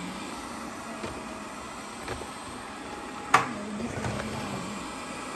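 GleeU GRS1 robot vacuum running with a steady hum, with a couple of light ticks and one sharp knock about three and a half seconds in.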